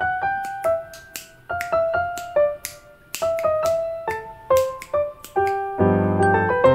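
Cute piano background music with a bright, stepping melody, punctuated by sharp snapping clicks several times a second.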